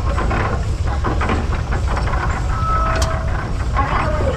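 Russell steam traction engine running as it passes close by, a constant low rumble with a series of knocks and clanks from the engine and gearing. A short steady tone sounds about halfway through.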